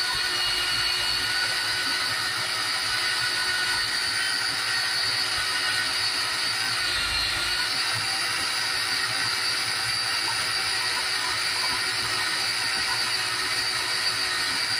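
Small electric mini food chopper running steadily with a high motor whine as its blade purees roasted eggplant, tahini and lemon into a dip. The pitch dips slightly about seven seconds in, then steadies again.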